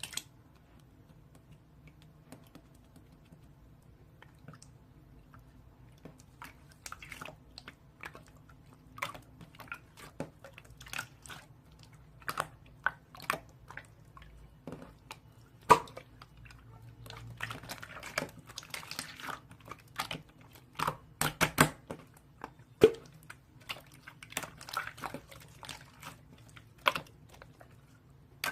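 Irregular close-up clicks and wet crackles. They begin a few seconds in and grow busier and louder, with the sharpest clicks past the middle.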